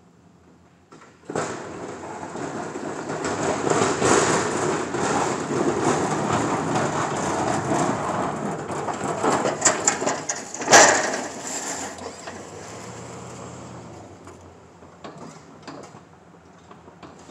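A steel V-plow blade on a pickup truck pushing and scraping snow across the pavement up close. The rough, grinding noise starts about a second in, builds and holds, then fades away. A single loud clunk comes near the end of the loud stretch.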